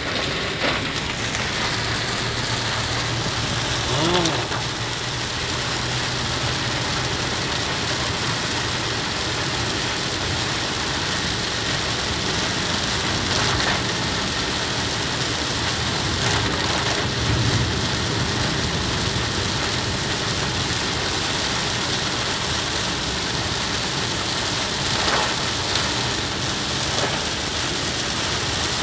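Heavy rain beating on a small car's roof and windscreen, heard from inside the cabin as a steady hiss, over the low steady hum of the Suzuki Alto 800's three-cylinder engine and tyres on the wet road.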